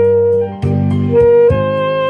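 Yanagisawa WO2 saxophone with a Vandoren Java reed playing a slow ballad melody over an accompaniment with a steady beat. A held note breaks off briefly about half a second in, then a new phrase starts and steps up to a higher held note.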